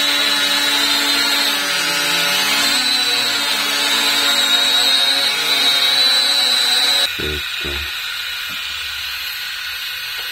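Small toy camera drone's motors and propellers whirring with a high-pitched whine while the drone is held in the hand, the pitch dipping briefly about two seconds in. About seven seconds in the sound drops sharply to a quieter hum, with a few low knocks.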